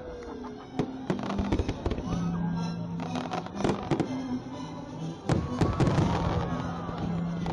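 Fireworks going off in a rapid series of bangs and crackles, with a dense cluster of blasts about five seconds in. Music with low held notes plays underneath.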